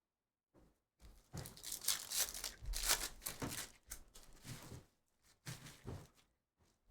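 Foil trading-card pack wrappers being torn open and crinkled, in a run of crackling, rustling tears. The run starts about a second in and dies down into a few short rustles near the end.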